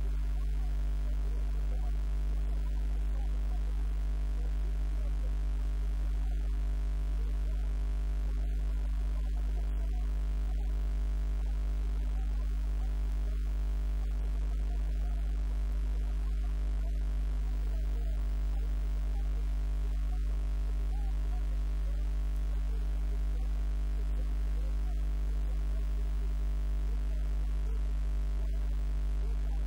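Steady low electrical hum, loud and unchanging, with faint wavering tones above it.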